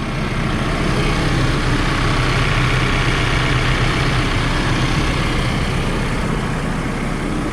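2013 Case 590 Super N loader backhoe's diesel engine idling steadily.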